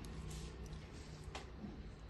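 Quiet room noise: a low steady hum with a faint hiss, and one sharp small click about one and a half seconds in.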